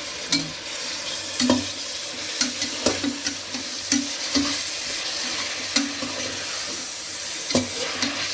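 Chopped tomatoes and onions sizzling in hot oil in a pressure cooker while being stirred, with the utensil scraping and knocking the metal pan about once a second.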